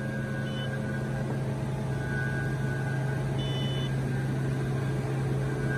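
Steady low machine hum in the room, with two faint brief high-pitched beeps, one about half a second in and another a little past three seconds.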